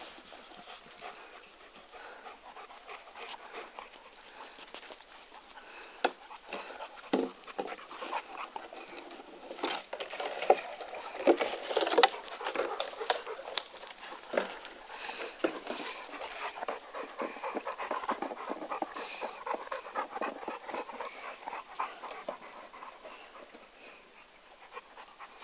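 Dog panting, with many short clicks and knocks, the loudest of them about halfway through.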